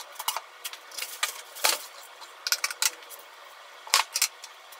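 Kitchen knife slicing green peppers on a wooden cutting board: a run of irregular sharp taps, with a couple of louder knocks, one near the middle and one near the end.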